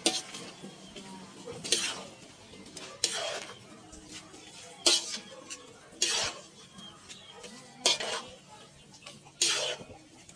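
Metal cooking utensils scraping and tossing stir-fried noodles and cabbage in a large metal wok: about seven short scraping strokes, one every second and a half or so.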